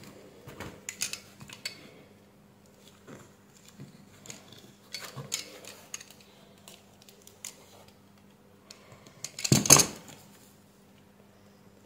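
Small clicks and taps of a plastic battery-pack case being pressed shut and squeezed in metal tongue-and-groove pliers, with one louder metal clunk near the end as the pliers are handled on the workbench.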